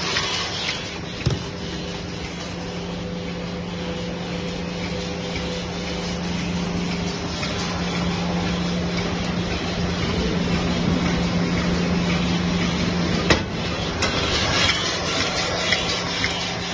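Automatic capsule filling machine running: a steady hum with an even mechanical rhythm of about one and a half beats a second, and a sharp knock about thirteen seconds in.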